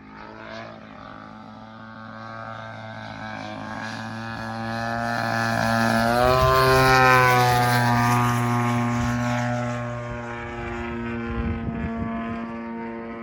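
Propeller aircraft engine running steadily as the plane flies past. It grows louder to a peak about seven seconds in, its pitch drops as it passes, and it then fades somewhat.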